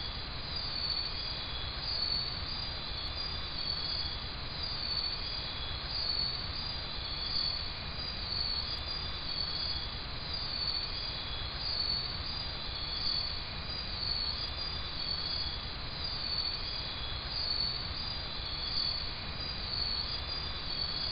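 Night insect chorus of tropical rainforest: many insects trilling steadily at a high pitch, the trill swelling in slow regular pulses, over a low rumble.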